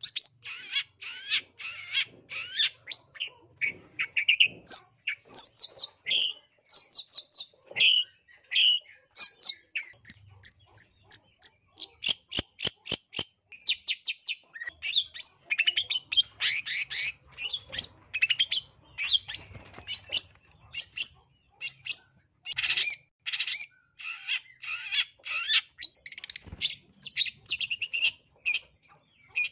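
Long-tailed shrike singing a rapid, unbroken run of short, varied chirps, whistles and harsher chattering notes, full of mimicked phrases of other birds. This is the 'gacor' singing of a male in high breeding condition and fighting mood.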